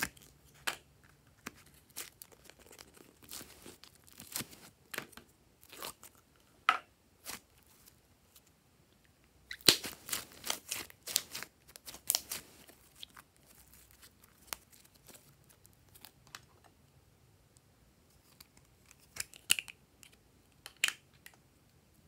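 Slime being handled: sealed plastic slime cups opened and thick glossy slime squeezed out of them into a glass bowl, giving irregular sticky crackles and pops, thickest about ten to thirteen seconds in and again near the end.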